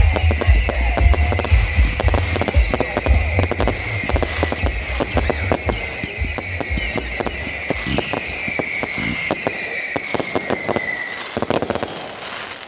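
Fireworks going off: a dense run of crackling bangs with high whistles that slowly fall in pitch, thinning out toward the end.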